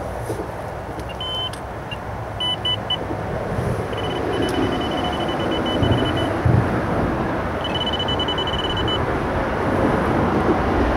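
Electronic carp bite alarm sounding in short runs of rapid, high-pitched beeps four times, as line is moved across it at the rod pod. A steady rumble of road traffic runs underneath.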